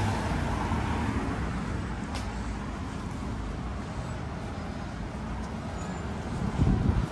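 A car passing close by, loudest at the start and fading into steady street traffic noise. Wind buffets the microphone near the end.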